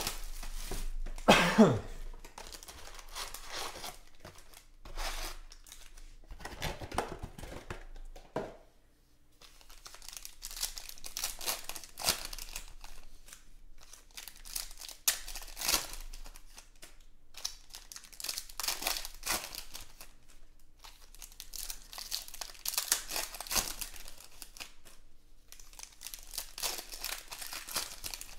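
Plastic shrink-wrap and foil trading-card packs crinkling and tearing as they are opened by hand, in irregular bursts of rustling. The loudest is a tear with a falling pitch about a second and a half in.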